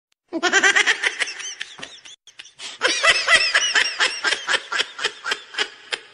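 Hearty laughter in rapid high-pitched bursts, about six a second, pausing briefly about two seconds in before starting up again.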